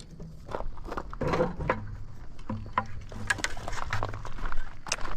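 Footsteps and rustling: a string of irregular crunches and scuffs, with a low steady hum underneath.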